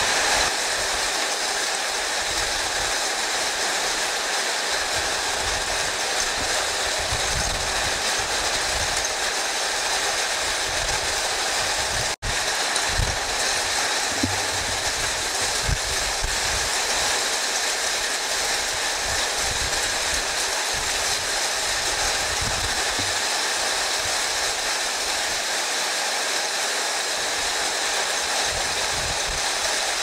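Heavy thunderstorm rain pouring down, a steady loud rush, with strong wind gusting against the microphone in irregular low buffets. The sound cuts out for an instant about twelve seconds in.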